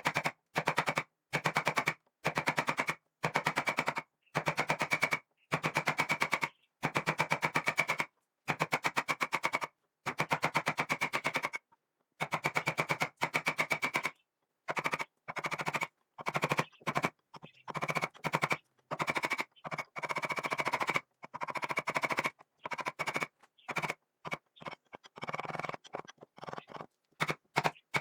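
A handheld power tool run in repeated short bursts of about a second each, with a fast, even rattle. The bursts stop abruptly, with dead silence between them, and grow shorter and choppier in the second half.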